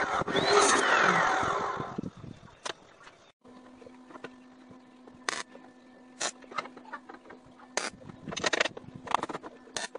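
Electric grinder dressing down the weld-built edge of an aluminum vent piece, running loud and then winding down and stopping about two seconds in. After a short break comes a quieter stretch: a steady low hum with scattered sharp clicks and knocks.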